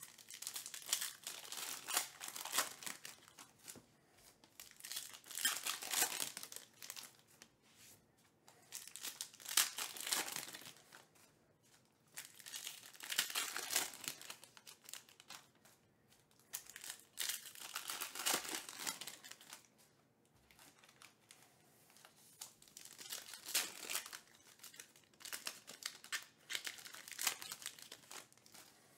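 Foil wrappers of Panini Elite Extra Edition baseball card packs being torn open and crinkled by hand, in repeated bursts of crackling every few seconds with short pauses between.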